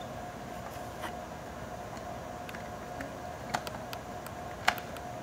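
A few sharp, light clicks of a small screwdriver and screw against a laptop's metal bracket as a screw is driven in, the loudest near the end, over a steady hum.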